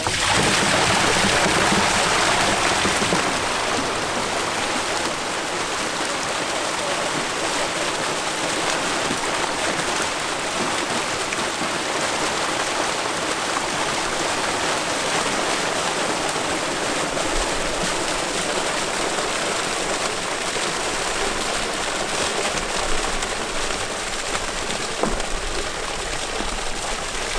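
Water gushing out of a tank's outlet chute and splashing into the lake as fish are released with it. It is loudest for the first few seconds after the gate opens, then settles into a steady rushing splash.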